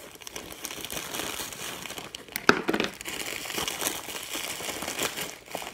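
Plastic bubble wrap crinkling and rustling as it is handled and cut at with a pocket knife, with one sharp pop about two and a half seconds in.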